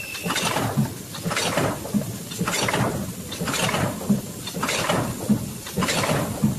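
Automatic carton drink filling and packing machine running, with a repeating mechanical clatter and hiss about once a second as it works through its cycle and pushes out filled cartons.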